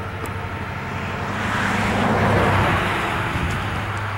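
A passing vehicle, its noise swelling to a peak about two seconds in and then fading, over a steady low hum.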